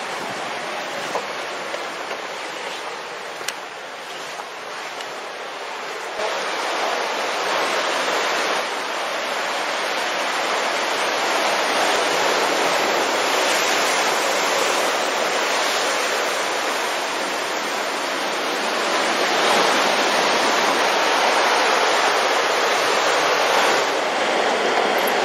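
Sea surf breaking and washing over rocks: a steady rushing noise that grows louder about six seconds in.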